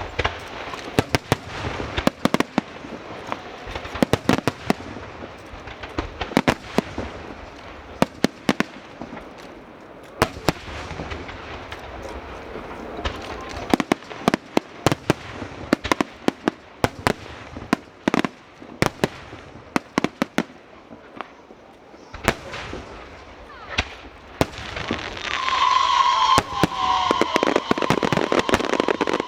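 Aerial fireworks going off: a steady run of sharp bangs and crackling shell bursts. Near the end they thicken into a louder, continuous rush with a high steady whistling tone.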